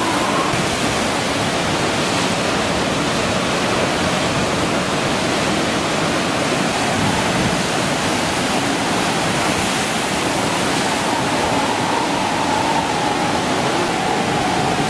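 Steady, loud roar of a storm-driven sea and strong cyclone wind, with no breaks.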